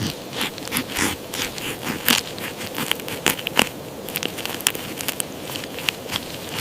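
Hedgehog foraging in dry leaves: irregular crackling and crunching, several sharp clicks a second.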